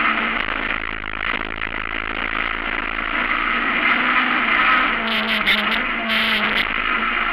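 Honda Civic Type R hillclimb car's four-cylinder engine heard from inside the cabin, running hard through the bends. Its pitch dips briefly about five seconds in and climbs again, with a few short hissing bursts around then.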